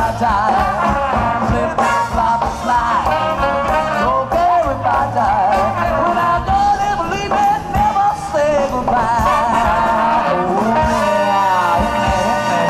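Live rhythm-and-blues band with a horn section, electric guitar and drums playing an upbeat number, with a singer's voice over it. Long held notes come in near the end.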